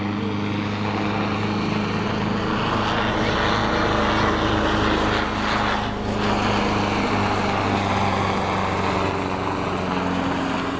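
AgustaWestland HH-139A (AW139) twin-turboshaft helicopter flying past in a display, its main rotor and turbines running with a steady low hum and a thin high turbine whine that drops slightly in pitch near the end.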